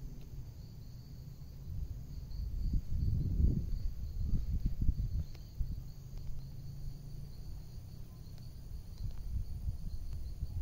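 Outdoor ambience: insects chirring in a steady, faint high band, over a low, uneven rumble that swells a few seconds in.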